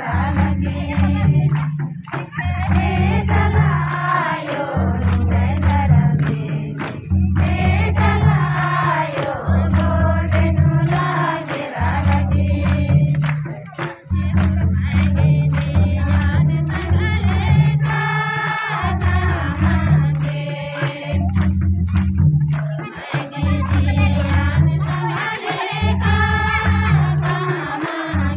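Group of voices singing a Kurukh devotional bhajan, with a rattle or tambourine keeping a steady beat over a repeating bass line.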